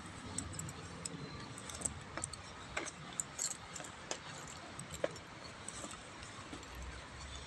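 Faint, irregular small clicks and light jingling scattered throughout, over a low, steady background rumble.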